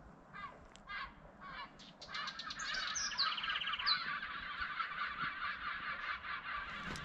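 A flock of birds flying overhead and calling: a few separate calls at first, then from about two seconds in a dense chorus of many overlapping calls.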